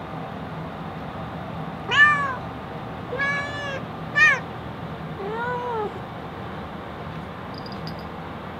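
A long-haired cat meowing four times: a short loud meow about two seconds in, a longer one, another short sharp one, then a fainter, lower, drawn-out one a little before six seconds. Under the calls is a steady hiss.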